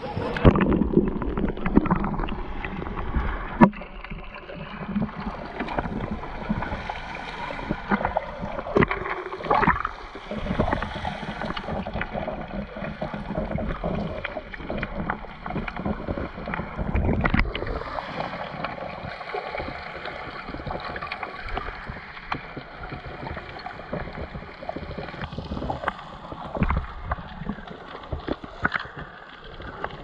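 Muffled underwater sound of sea water, heard with the microphone held below the surface: an irregular gurgling and sloshing with scattered knocks.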